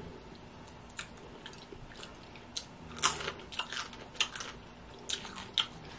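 A person eating steamed blue crab meat picked with the fingers: wet chewing and mouth smacks in scattered sharp clicks, most of them bunched together around the middle.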